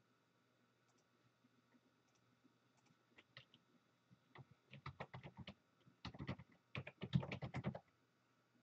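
Typing on a computer keyboard: quick runs of key clicks starting about three seconds in, getting busier and louder, then stopping just before the end.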